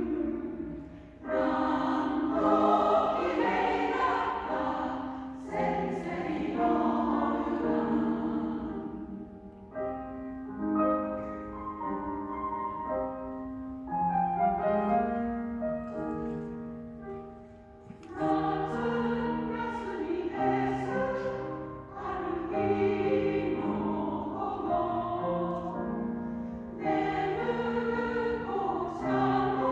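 Choir singing together with piano accompaniment, in sustained phrases with short breaks between them.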